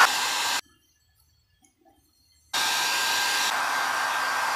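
Small handheld hair dryer running, blowing on a wet hair patch to dry it. It is a steady rush of air with a thin high whine. The sound cuts out abruptly about half a second in and comes back about two and a half seconds in.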